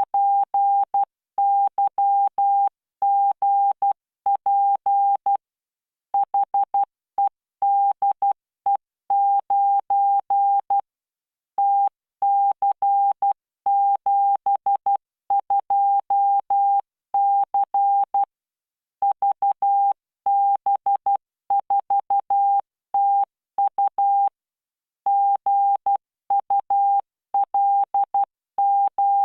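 Computer-generated Morse code (CW) practice tones from training software, sent at 12 words per minute with standard spacing: a single steady beep keyed on and off in short dots and longer dashes, with short gaps between characters and longer pauses every few seconds between groups.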